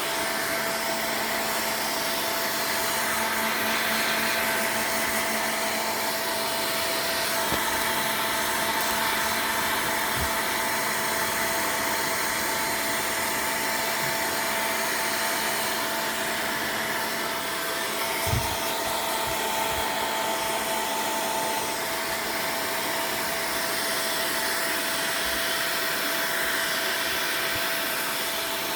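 Hair dryer blowing steadily on a cat after its bath: an even rushing hiss with a constant motor whine. A soft bump about eighteen seconds in.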